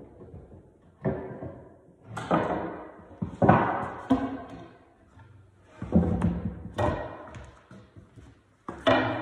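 A long wooden skirt board being pried and pulled off a staircase wall: about six wooden knocks and thumps as the board comes free and knocks against the wall and the bare wooden stairs, each ringing out briefly.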